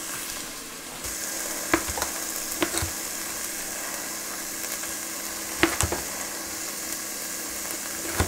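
Knife cutting a green bell pepper on a small plastic cutting board: a handful of sharp knocks, two of them in pairs, over a steady sizzle of vegetables sautéing in butter that picks up about a second in.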